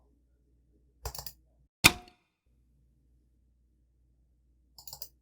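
A Meitu phone's default Android lock sound played back: one short, sharp click with a brief ring. It is preceded by a quick run of computer mouse clicks, and more mouse clicks come near the end.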